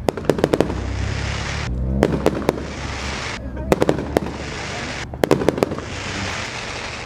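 Aerial fireworks display: four clusters of rapid sharp bangs about every one and a half seconds, each followed by a dense crackling.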